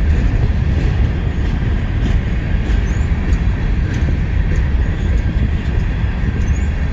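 CSX freight train cars rolling past close by: a steady rumble and rattle of steel wheels on the rails, with a couple of faint, brief wheel squeals.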